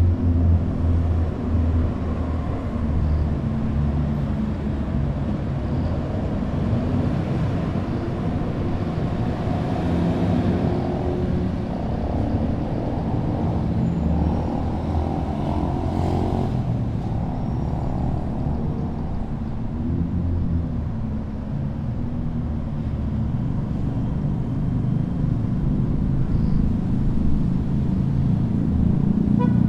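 City street traffic running steadily, with the low rumble of cars, buses and trucks passing.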